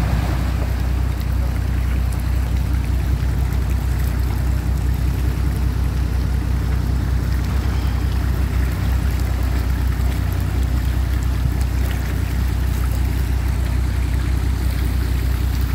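Off-road vehicle engine running steadily with a low, unchanging hum under a constant noisy wash.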